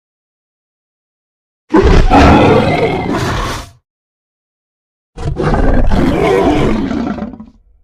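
Two long dragon roars, each about two seconds, separated by a few seconds of silence.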